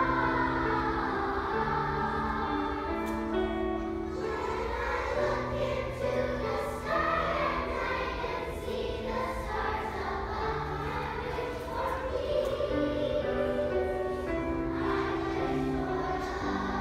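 Children's choir singing a song together, with instrumental accompaniment holding low notes beneath the voices.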